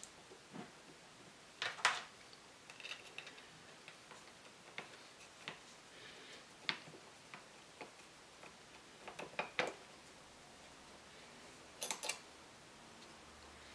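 Irregular light clicks and taps of small metal parts and hand tools being handled on a workbench, some in quick pairs, with pauses between.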